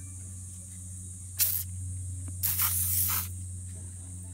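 Small spray atomizer misting ferric chloride onto a pot: a short hiss about a second and a half in, then a longer hiss of nearly a second.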